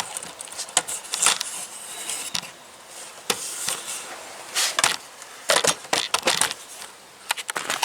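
Irregular clicks and short rattles of parts being handled on a mower, in scattered clusters with quieter gaps.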